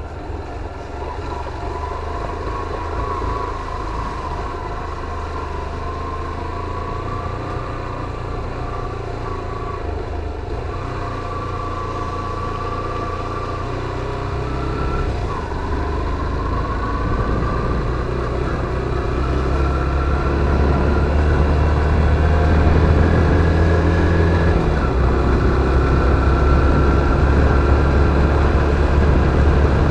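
Motorcycle engine running as it is ridden, with a whine that wanders in pitch. It grows louder through the second half, and its pitch steps down a few seconds before the end.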